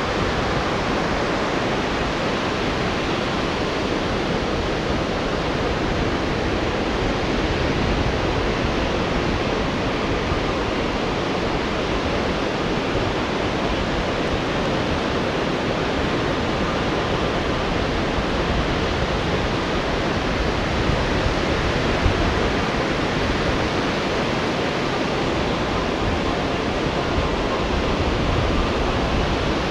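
Steady roar of rough surf breaking, an even rushing noise with no let-up.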